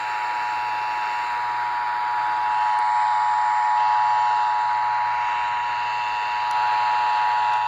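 NOAA Weather Radio's 1050 Hz warning alarm tone: one steady, unbroken tone held over radio hiss. The tone signals that a warning is about to be broadcast, here a tornado warning.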